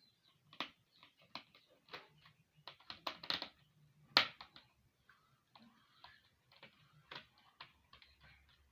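Irregular light plastic clicks and taps from a laptop being handled and opened up, with a cluster about three seconds in and the loudest click a little past four seconds.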